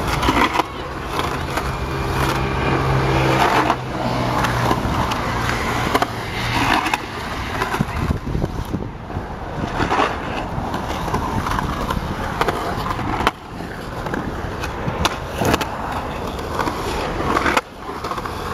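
Skateboard wheels rolling and carving on the smooth concrete walls of a skate bowl: a continuous rolling rumble that swells and fades with each pass, broken by several sharp knocks of the board and wheels on the concrete.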